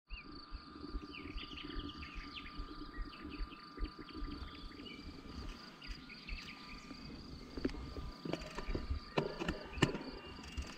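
Outdoor ambience of insects chirping over a low wind rumble, with sharp clicks and knocks coming more often in the last few seconds.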